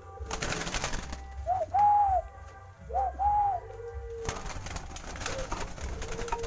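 Caged doves cooing twice, a little over a second apart. Each coo is a short lead-in note followed by a longer arched one, and a lower held coo follows the second. Crackling and clicking runs underneath, thickest before the first coo and through the latter half.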